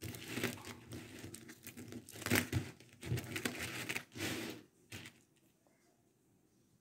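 Hands shifting and pressing strands of threaded coral beads against the work surface, a crinkling rustle in several bursts that stops about five seconds in.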